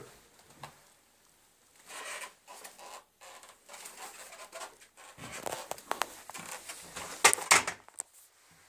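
Hard plastic parts of a Dyson vacuum cleaner being handled, with scattered clicks and short rattles and two sharp clicks about seven seconds in, the loudest of all. The motor is not running.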